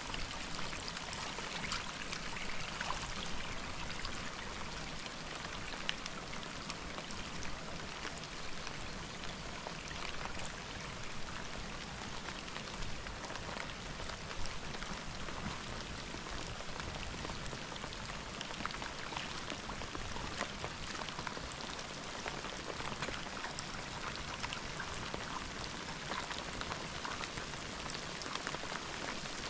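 Steady rain falling, with many small individual drop hits heard through it.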